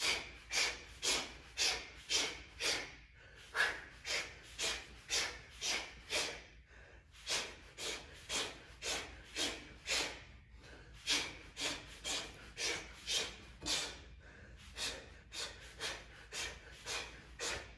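A man's short, sharp breaths out, one with each punch as he shadowboxes combinations, about two a second in runs broken by brief pauses.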